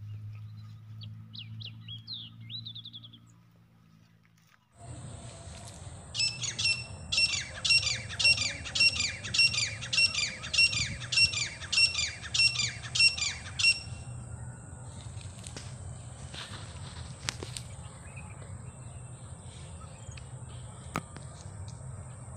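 Grey francolin calling: a loud series of about a dozen shrill, evenly repeated calls, roughly one every half second, starting about six seconds in and stopping near the middle. Faint chirps of a small bird come before it.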